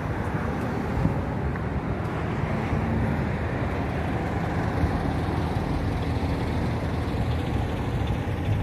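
Steady outdoor background rumble with no distinct events, heaviest in the low end.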